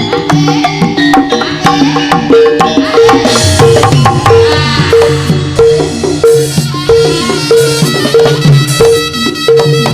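Instrumental passage of live Javanese troupe music: hand drums and pitched struck percussion, with one note repeated about twice a second over a steady beat.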